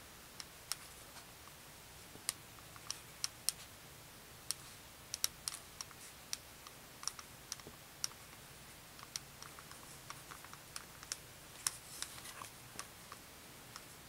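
Faint, irregular light clicks and taps from hands handling a jointed doll and its cotton slip: small knocks of fingernails and doll limbs, scattered unevenly, sometimes several in quick succession.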